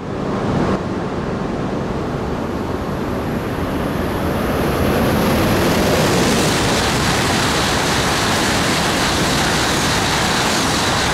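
E5+E6 coupled Tōhoku Shinkansen train passing through the station at speed on the through track: a steady rush of air and wheel noise that grows louder about four to five seconds in.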